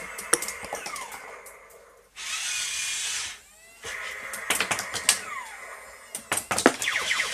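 Remote-control toy robot's small geared motors whirring in stop-start bursts, with clicks and falling electronic sound effects.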